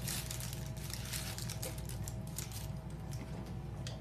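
Faint light clicks and small handling noises over a steady low hum.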